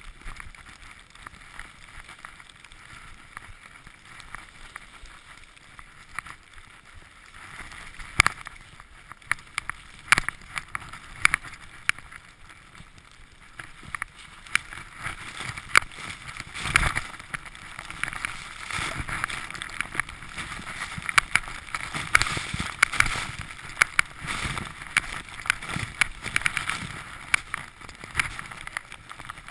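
Skis running through deep powder snow: a steady hiss that grows louder about halfway through, with frequent sharp clicks and knocks.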